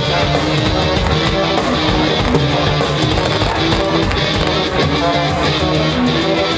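Live band playing an instrumental passage of a song with a steady beat, without singing.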